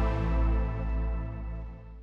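Ambient background music of sustained, layered tones, fading out toward the end.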